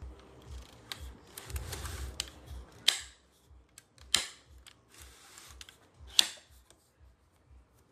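Handling noise from a cordless stick vacuum's plastic parts: a short rustle or scrape, then three sharp plastic clicks a second or two apart. The motor is not running.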